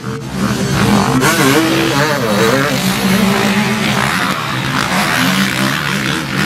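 Motocross off-road motorcycle engines running and revving, the pitch rising and falling repeatedly as the throttle is worked.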